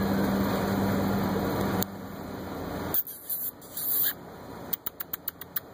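A puppy chewing and gnawing on a sneaker: scratchy rustles, then a quick run of about seven light clicks near the end. A steady background hum stops about two seconds in.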